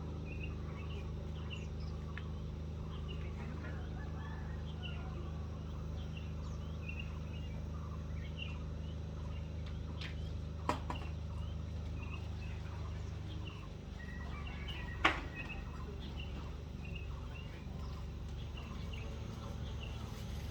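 Many short bird chirps scattered throughout over a steady low hum, which shifts about two-thirds of the way through, with two sharp clicks.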